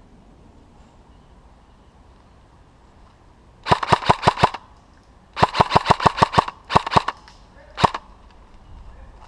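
Airsoft gun firing in quick bursts of sharp, evenly spaced shots, about eight a second: a burst about four seconds in, a longer one about a second later, a short one, then a single shot near the end.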